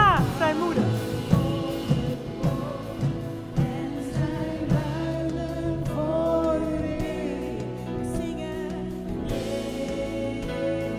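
Worship music: singing voices over steady, held chords.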